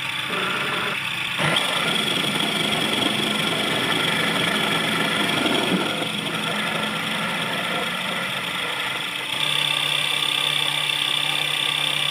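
Mini metal lathe running, its motor giving a steady hum and whine while a small drill bit bores into the end of a spinning metal part. A rougher grinding of the cut is heard in the first half, and the sound jumps abruptly twice.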